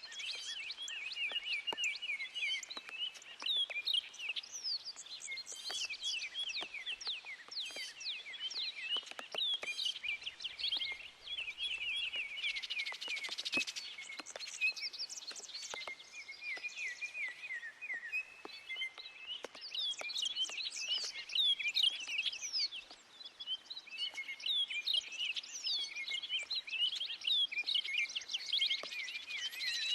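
Several backyard birds chirping and singing without pause, many quick high notes overlapping, with scattered sharp ticks of rain dripping.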